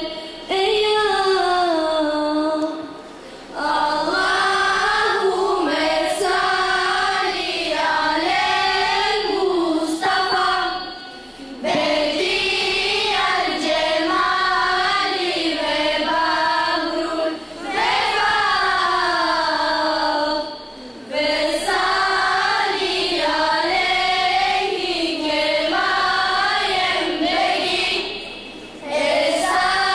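A girl's voice singing unaccompanied into a microphone: a devotional melody in long phrases that rise and fall, broken by short pauses for breath.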